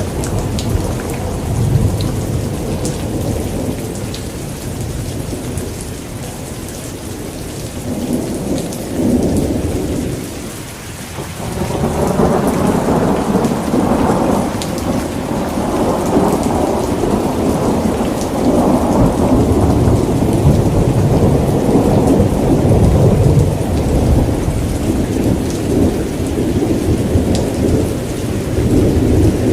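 Rain falling steadily with rolling thunder rumbling underneath; the rumble eases off about a third of the way in, then swells back louder and keeps rolling.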